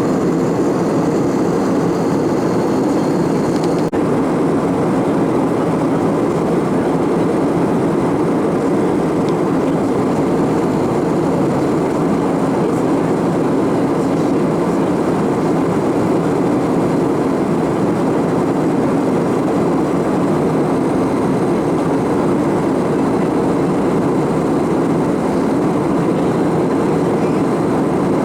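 Steady cabin noise of an Airbus A319-112 in flight: an even rumble and rush of its CFM56 engines and airflow, holding constant throughout.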